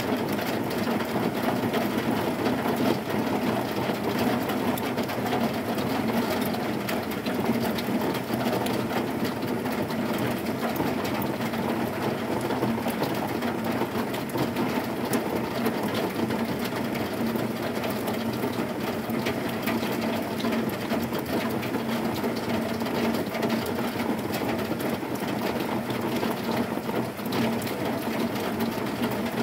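Heavy rain falling on a corrugated zinc roof: a dense, steady patter of countless drops on the metal sheets.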